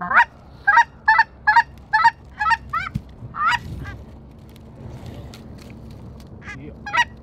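Goose honks in a quick run of short, clucking calls, about two or three a second, then a pause and two more calls near the end.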